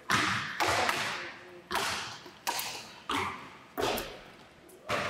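Basketballs bouncing on a hardwood gym floor: irregular thuds, about seven in five seconds, each echoing in the large hall.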